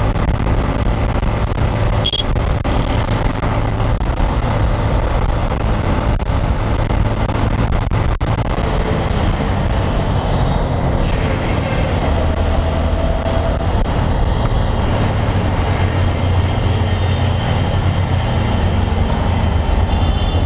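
A motorcycle ridden at speed, heard from the rider's own camera: a steady rush of wind and engine and road noise that slows toward a stop near the end.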